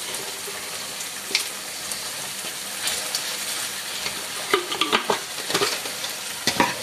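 Onion, garlic, tomato sauce and paprika sizzling steadily in olive oil in a frying pan. About two-thirds of the way through come a few light clicks and knocks as a glass jar is handled.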